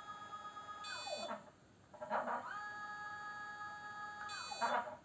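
iOptron CEM60 equatorial mount's declination-axis motor slewing at maximum speed: a high whine that rises in pitch as the motor speeds up, holds steady, then falls as it slows to a stop. This happens twice, once ending about a second in and again from about two seconds in until near the end, with a rougher gear noise at each speed-up and slow-down.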